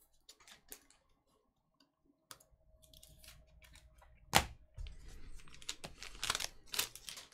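Light clicks and taps of small objects being handled on a tabletop, with one sharp knock about four and a half seconds in and a few louder clicks near the end.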